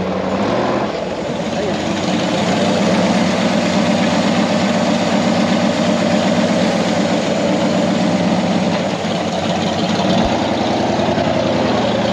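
Off-road rig's engine running steadily at low speed while crawling over rock. Its tone shifts after a short click about ten seconds in.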